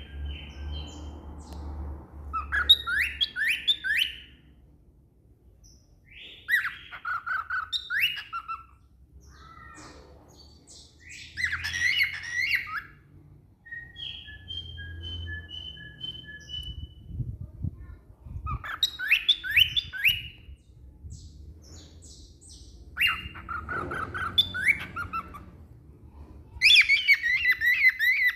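A pet cockatiel singing: phrases of warbling whistled notes that rise and fall, repeated every few seconds, with two longer held whistles near the middle.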